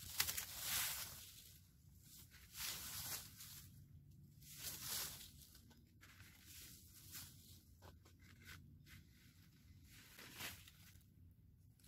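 Evergreen boughs rustling as they are carried and set down, with footsteps crunching in dry leaf litter. The sound comes in several separate rustling bursts, the loudest near the start.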